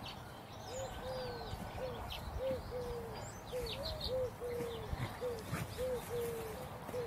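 A dove cooing in a low three-note phrase, short–long–short, repeated about every one and a half seconds, with small birds chirping faintly.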